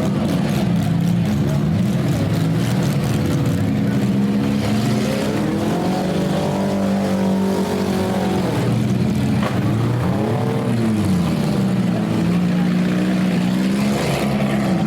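Several compact car engines revving up and down at once, their pitches rising and falling against each other as the cars drive and push during a demolition derby heat.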